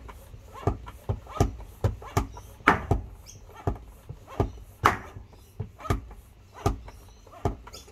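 Floor pump being stroked steadily, a little more than once a second, each stroke a short push of air into a mountain-bike tyre fitted with a Tubolight insert, being inflated to seat the bead.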